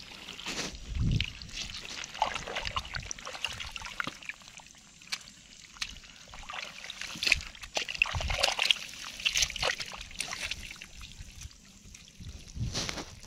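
Bare hands digging into and pulling apart waterlogged mud and straw stubble: irregular wet squelching, sloshing and trickling of muddy water, with a few dull thuds.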